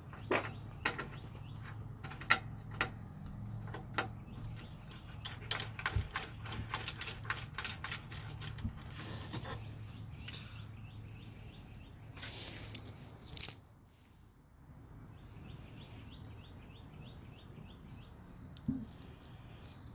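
Small metal bolts and tools clinking and tapping as parts are handled and fitted, with a run of sharp clicks and knocks that thins out about two-thirds of the way through. A steady low hum runs underneath and stops at that point.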